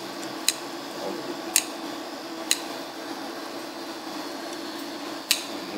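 Chopsticks clicking against a china plate four times, at uneven intervals, while noodles are stirred and mixed with sauce, over a steady low hum.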